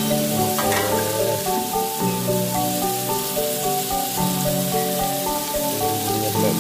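Chopped shallots, garlic and red chili sizzling as they fry in hot oil in a wok. Background music with a stepping melody plays along with it.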